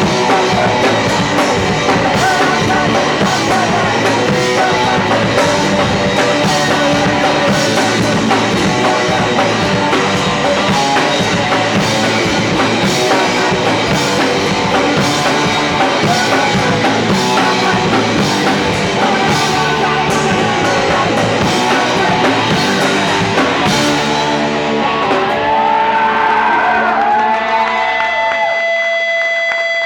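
Punk rock band playing live: distorted guitar, bass, drum kit and vocals. About 24 seconds in, the drums stop and the guitars are left ringing out, ending on a steady held tone.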